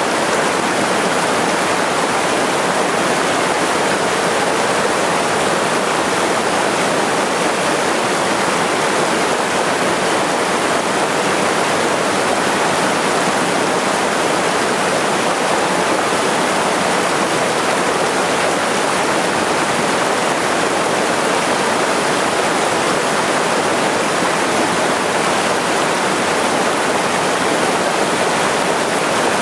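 Small waterfall pouring into a rocky mountain-stream pool: a steady, unbroken rush of water.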